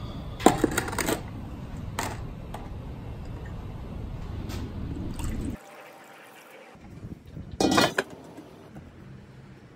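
Kettle grill being handled: a few short clusters of knocks and rattles, the loudest near the start and another near the end, over a steady low rumble that cuts off abruptly about halfway through.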